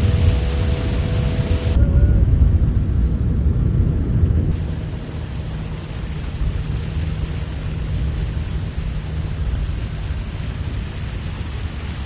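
Wind rumbling on the microphone of a moving boat out on open floodwater, with a faint steady hum beneath it. The sound changes abruptly about two seconds in and again about four and a half seconds in.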